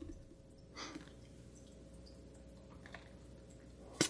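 Mostly quiet, with faint handling of a plastic blender cup: a short rustle about a second in, a faint tick near three seconds, and one sharp click just before the end.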